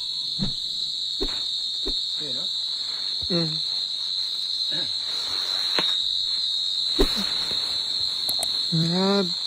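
Steady, high-pitched chirring of night insects, unbroken throughout. Short voice sounds break in now and then, with a sharp click about seven seconds in and a voice starting near the end.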